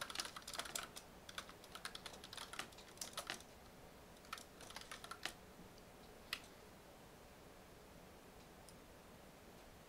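Computer keyboard typing: quick runs of keystrokes that thin out after about three seconds and stop a little after five seconds in, with one last single keystroke about six seconds in.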